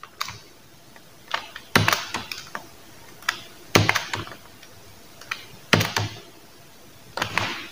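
Computer keyboard keystrokes: the plus and minus keys on the numeric keypad being pressed one at a time. The sharp key clicks come in small clusters about every two seconds.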